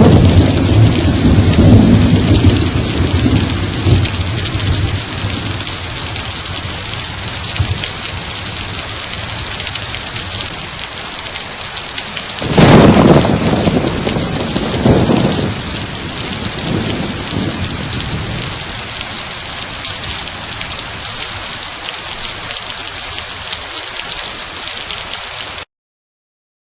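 Steady heavy rain with thunder: low rumbling at first, a loud thunderclap about halfway through whose rumble dies away over a few seconds, then rain alone until it cuts off abruptly just before the end.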